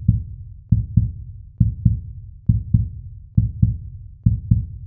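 Heartbeat sound effect: deep double thumps, lub-dub, repeating at a steady pace of about one beat every 0.9 seconds.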